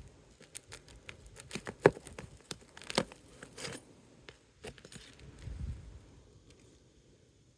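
Hand work on asphalt roof shingles: irregular small clicks, scrapes and metallic clinks as a shingle is worked loose from its fasteners, with two sharper knocks about two and three seconds in.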